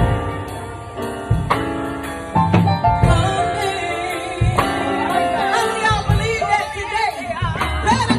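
Live gospel song: a band plays sustained chords with bass and drum hits. From about three seconds in, a woman sings over it with wavering, ornamented runs.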